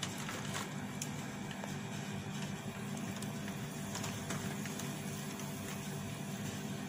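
Metal spoon stirring ice cubes in a glass of Sprite, giving a few faint clinks over a steady low hum.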